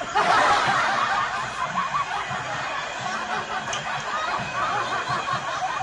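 Laughter starting suddenly: several overlapping voices snickering and chuckling, which keeps going steadily.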